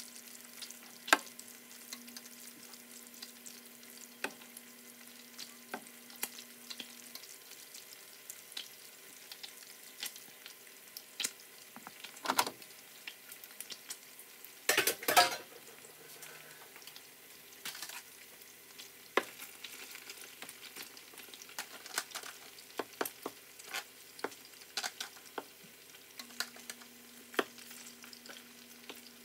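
Chicken pieces frying and sizzling in a pan, with frequent sharp pops and clicks and the scrape of a utensil stirring. A louder clatter comes twice, about twelve and fifteen seconds in.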